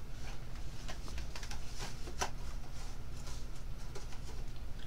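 Small plastic-packaged cable accessory being handled and fiddled with: scattered light clicks and rustles of plastic, over a steady low hum.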